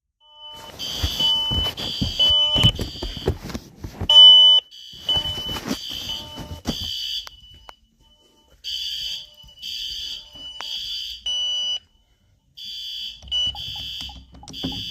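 Ring fire alarm and a commercial fire alarm sounding together: repeated high-pitched beeps in an on-off pattern, with a lower tone sounding along with them in the first half. The beeping pauses briefly twice.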